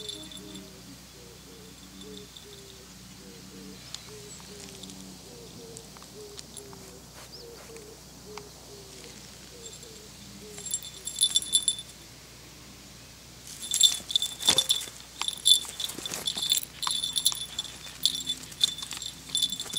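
Small bell on a feather wand cat toy jingling as the toy is shaken and batted. There is a brief jingle about halfway through, then near-continuous jingling in the last third.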